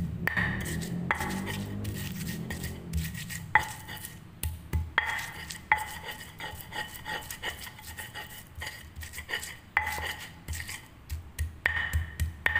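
Stone pestle (ulekan) grinding on a flat stone mortar (cobek), crushing spices into a paste: gritty scraping broken by irregular stone-on-stone knocks that ring briefly.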